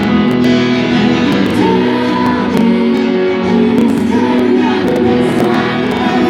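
Live concert music: a band playing loudly and steadily with singing over it, in a large hall.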